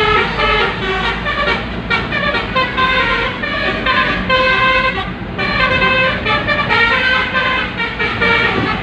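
Basuri telolet bus horn playing a tune, a quick run of short horn notes stepping up and down in pitch.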